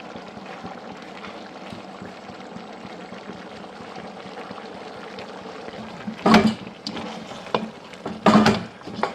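Pot of chicken simmering in water and red palm oil, bubbling steadily, then two short louder bursts of a spoon stirring and knocking in the pot, about six and eight seconds in.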